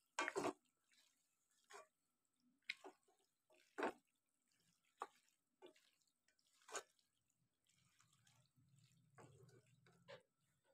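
A spatula scraping and tapping against a non-stick pan as macaroni and potato curry are stirred together: a scatter of short, soft, wet clicks and scrapes, loudest at the very start and again around four and seven seconds in. A faint low hum rises briefly near the end.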